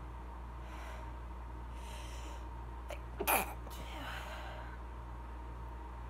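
A woman's single stifled sneeze, brought on by a conditioning hair spray, about three seconds in. Two faint breaths come before it, and it ends in a short breathy tail.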